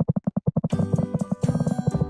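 Background music: a fast pulsing repeated note, joined about two-thirds of a second in by fuller instrumental music with sustained tones.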